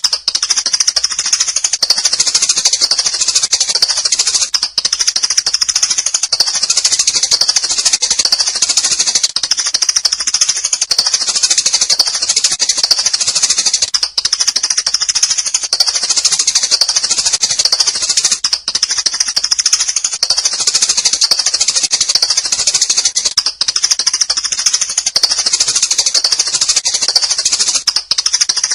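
Many sparrows chirping at once in a dense, continuous high-pitched chatter, a sparrow lure call recording.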